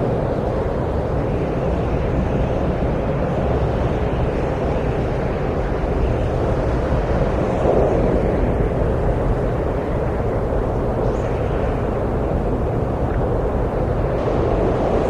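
Wind blowing steadily, a dense rushing noise sitting low, swelling slightly about halfway through.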